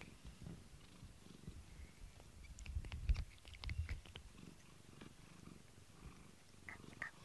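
Domestic cat purring close up, a low pulsing rumble that swells about three seconds in, with light scratchy rubbing as the cat presses its face against a plastic comb-toothed brush.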